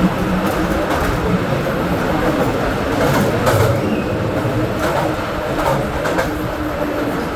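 Small mine train running along its rails through a mine tunnel: a steady, loud running noise with a few sharp clicks from the wheels and cars.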